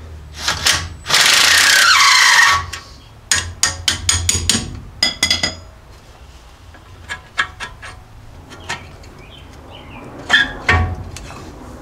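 A power tool runs for about a second and a half on the second caliper bolt, its pitch falling as it slows. Then a string of sharp metal clicks and clinks follows as the loosened bolt and the old brake caliper are handled.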